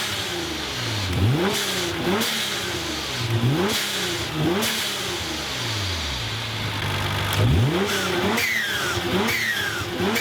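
Turbocharged car engine blipped again and again, about one rev a second, over a steady hiss of venting air. In the last couple of seconds each blip ends in a high whistle falling in pitch: a whistle nozzle on the blow-off valve.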